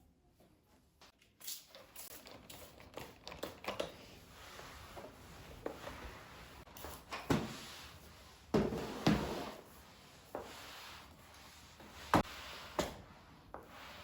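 Things being handled at close range: a run of rustling, with scattered taps and several sharper knocks of objects being set down or moved, the loudest about halfway through and again near the end.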